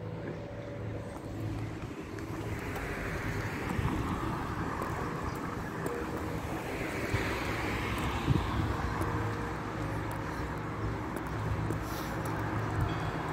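Street ambience with a motor vehicle passing. Its noise swells a couple of seconds in, peaks midway and fades, over a steady low hum.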